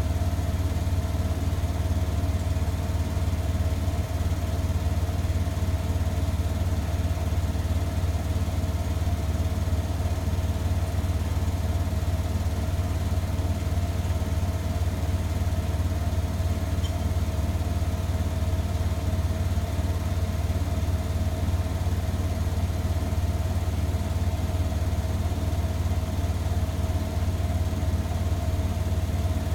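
Front-loading washing machine running, a steady low hum with a constant motor whine that holds unchanged throughout.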